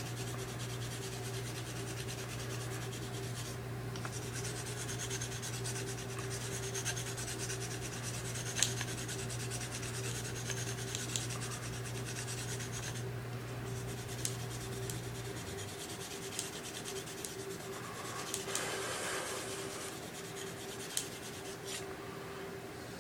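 Smith & Wesson Black Ops recurve knife blade stroked back and forth on an oiled fine sharpening stone: a continuous scraping rub with a few sharp clicks. A low steady hum underneath stops about two-thirds of the way through.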